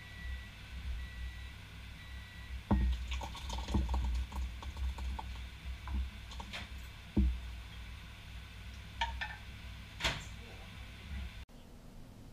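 A spoon clinking and knocking against a saucepan and bowl while liquid is spooned out, a few separate knocks over a low rumble.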